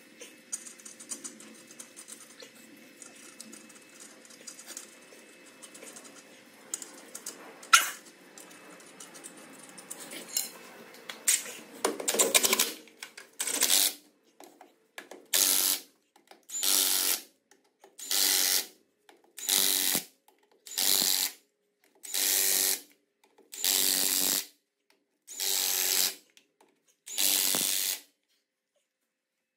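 Light metallic clinking of parts being handled at a truck wheel hub, with one sharp clink, then a cordless impact wrench hammering on the wheel nuts of a heavy truck wheel in about ten short bursts, roughly one every second and a half, one nut at a time.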